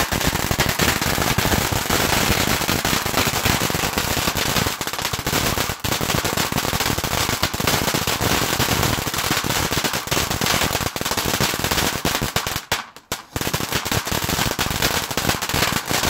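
Ground firework fountain throwing out sparks with a dense, rapid crackle that keeps up without a break, faltering briefly about thirteen seconds in before carrying on.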